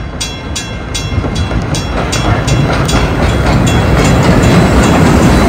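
Level crossing bell ringing about three times a second while an Rx-class steam locomotive and its carriages come up and pass close by, the rumble of the engine and wheels growing steadily louder.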